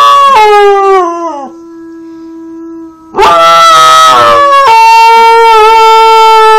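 Standard poodle howling: a loud howl that slides down in pitch and fades about a second in, a fainter steady howl, then a second long howl from about three seconds in that drops a step in pitch partway and is held.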